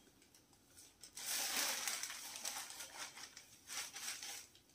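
Crisp woven saree fabric rustling and crinkling as it is unfolded and spread out by hand, starting about a second in and coming in waves.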